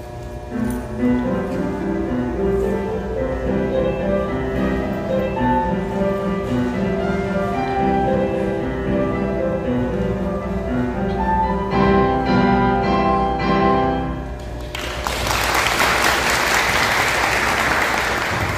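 Digital piano playing a slow solo piece, its notes ending about fourteen and a half seconds in, then applause from the audience.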